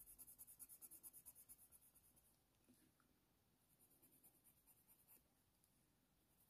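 Faint scratching of a Faber-Castell Polychromos colour pencil worked in quick repeated strokes with hard pressure across hot-press watercolour paper. It stops about two seconds in and picks up again briefly around four seconds in.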